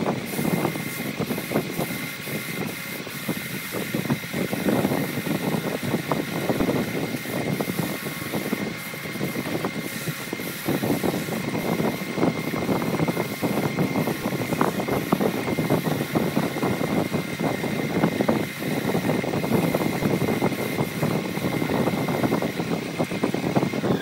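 Wood lathe running steadily with a high motor whine, while sandpaper held by hand against the spinning redwood turning gives a rough rushing friction noise that swells and fades.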